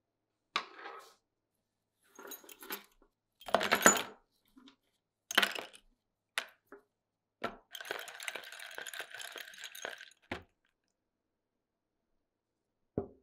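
Small steel airgun parts and a coil spring dropped one after another into a plastic tub, clinking and clattering against it and each other, the loudest clatter about four seconds in. Past the middle comes a steady rushing of about two and a half seconds, alcohol poured over the parts to soak them for cleaning.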